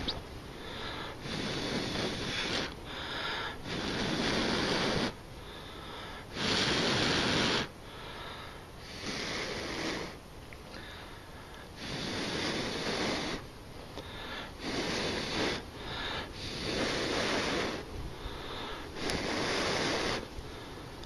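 A person blowing in repeated breaths onto a small ember in goldenrod pith, one rush of air about every two seconds, each lasting a second or so. The blowing nurses a spark-lit ember that the pith takes but does not hold well.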